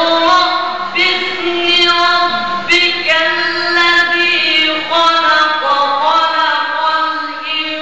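Male Quran reciter chanting a qirat in a drawn-out melodic style, holding long notes with ornamented turns between them.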